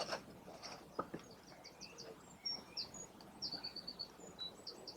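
Small birds chirping and singing, faint: short high chirps and slides, with a quick trill of about five repeated notes midway. A single sharp click about a second in.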